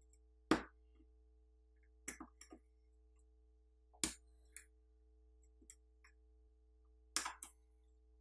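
Scattered small clicks and taps of a metal pry tool and tweezers on a smartphone's mainboard as thin wire cable connectors are popped off, over a faint steady hum.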